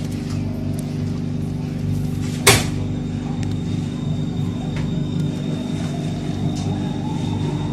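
BTS Skytrain car interior: a steady electric hum of several low tones, with one sharp click about two and a half seconds in. From about five seconds on, a whine rises steadily in pitch as the train pulls away from the station.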